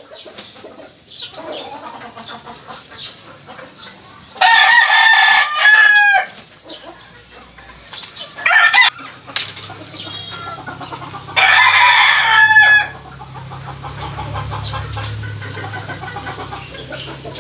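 Gamecock roosters crowing: two long crows about four and eleven seconds in, each with a falling end, and a shorter call near nine seconds.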